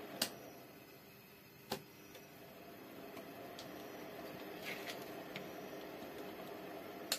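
Handling noise from a car subwoofer amplifier on a workbench: a few sharp clicks or taps, one about a quarter second in, one near 1.7 s and one at the end. A brief scrape comes about 4.7 seconds in as the metal amplifier is turned upright on its heatsink, over a faint steady hum.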